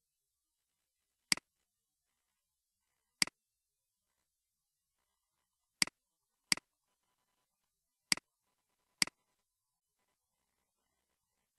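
Six sharp computer mouse clicks, each a quick press-and-release. They come a second or two apart, with two pairs closer together.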